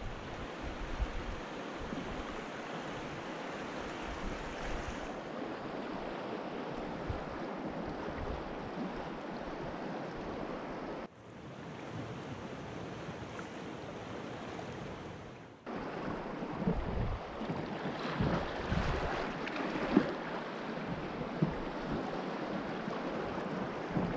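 Fast river water rushing and churning through a shallow rocky chute around a kayak, with wind buffeting the microphone. It drops quieter and duller for a few seconds about halfway, then comes back rougher, with scattered knocks and splashes.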